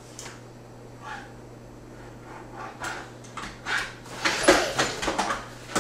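A young child's short breathy laughs and vocal noises, several in quick succession in the second half.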